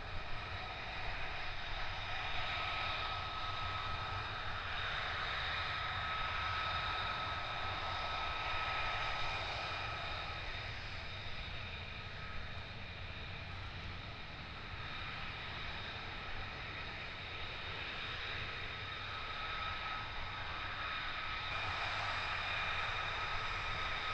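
F-35A fighter's Pratt & Whitney F135 turbofan at taxi power: a steady high-pitched whine over a low rumble, swelling slightly near the end.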